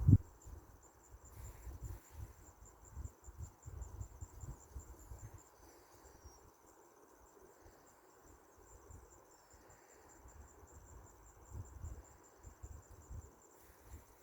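Insects chirring in a steady, high-pitched pulsing trill, with irregular low rumbles coming and going underneath.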